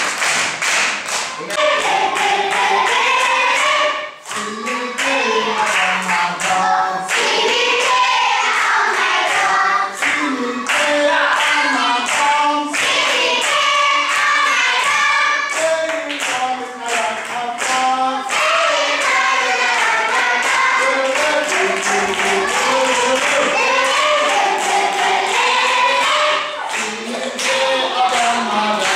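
A class of schoolchildren singing together and clapping their hands to a steady beat.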